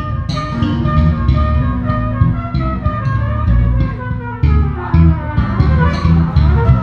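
Live band playing: electric bass guitar and drum kit with regular drum and cymbal strikes under a lead melody line that slides steadily downward over the last few seconds.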